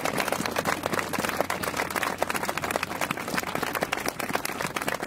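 A crowd applauding: many hands clapping in a dense, irregular patter.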